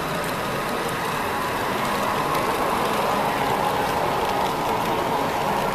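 HO-scale model train running along three-rail Märklin AC track, a steady running noise that grows a little louder during the first two seconds as the train comes nearer.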